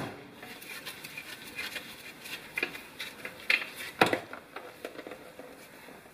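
Scattered light clicks and knocks of hand tools and metal parts at a Subaru Legacy's front differential as its drain plug is taken out, with one sharper knock about four seconds in.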